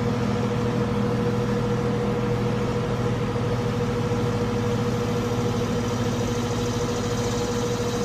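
Carrier 3-ton R410A central air conditioner condensing unit running in cooling mode: a steady compressor hum under the even rush of the condenser fan.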